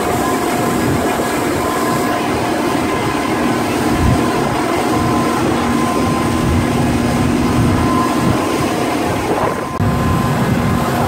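Speedboat engines running at cruising speed under way, a loud steady drone with a few held tones over the rush of the hull through the water, heard from inside the covered passenger cabin. The sound dips briefly near the end.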